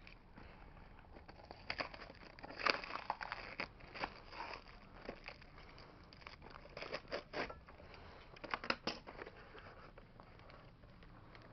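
Package being cut open with a box cutter and handled: irregular scrapes, clicks and rustles of cardboard and plastic.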